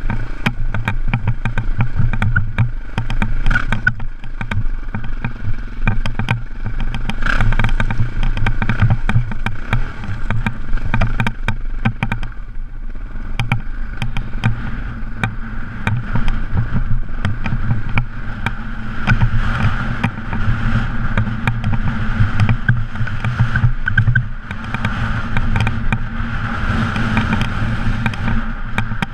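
KTM off-road motorcycle engine running at fairly steady revs while riding a rocky track, with rattling and clicking from the tyres and chassis over loose stones.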